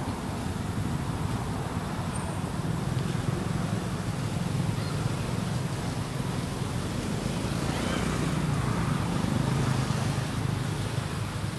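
Steady low rumbling outdoor background noise, a little louder in the second half.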